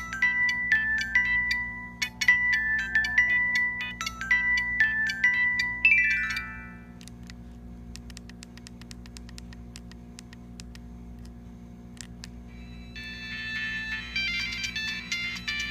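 Siemens A70 mobile phone playing its built-in ringtones: a quick electronic melody of bright notes ends with a falling run of notes about six seconds in. After a gap holding only faint clicks and a low hum, a second, busier ringtone melody starts near the end.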